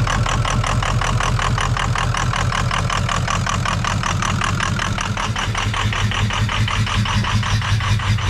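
The 6.0 PowerStroke V8 turbodiesel of a 2003 Ford F350 is running, very unhappy, just after restarting, with a rapid, even pulsing beat. The owner puts the rough running down to air still in the fuel rail after the truck ran out of fuel.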